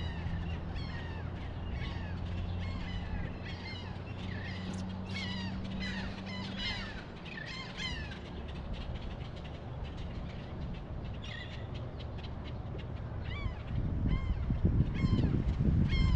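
Many birds calling and chattering at once, short repeated high calls overlapping throughout. A low steady hum runs underneath and stops about seven seconds in, and wind buffeting the microphone rises near the end.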